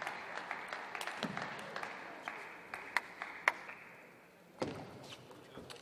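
Table tennis rally: the plastic ball clicking off rackets and table in an uneven run of quick, sharp hits, the loudest pair about three seconds in, over a steady hall background noise that drops away about four seconds in.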